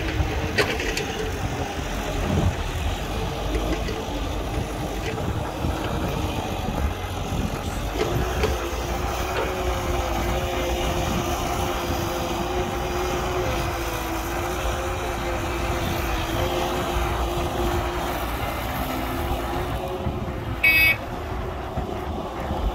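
Heavy diesel machinery running steadily, an excavator loading a dump truck: a low engine rumble with a droning tone, and a short, loud, high-pitched sound near the end.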